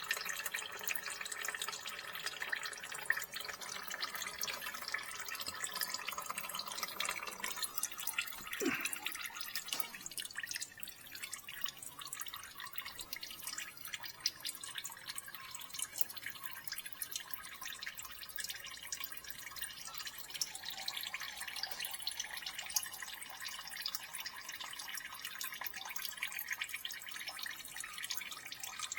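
Engine oil trickling and dripping out of the open sump drain hole of a 2017 BMW 225xe, louder for the first several seconds and fainter after about ten seconds.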